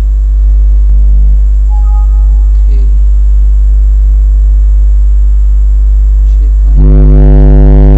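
Loud, steady electrical mains hum with a buzzing ladder of overtones. It swells louder and buzzier near the end.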